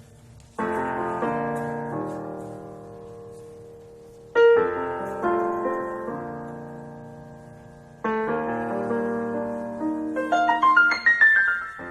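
Roland EP-7 digital piano playing a piano voice: three full chords struck about four seconds apart and each left to fade, then a quick run of notes near the end.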